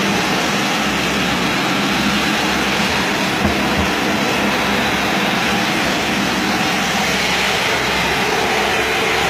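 Tile-and-grout spinner tool running on a wet tile floor: a loud, steady rushing roar of pressurized water spray and vacuum suction recovering the dirty water.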